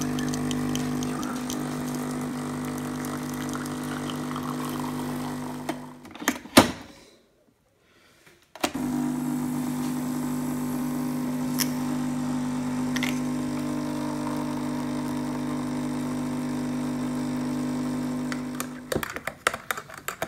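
Pod coffee machine's pump humming steadily as it dispenses milk into a mug for a latte. About six seconds in it stops after a few clicks, then starts again about two seconds later. Near the end a spoon clinks and scrapes in the mug as the drink is stirred.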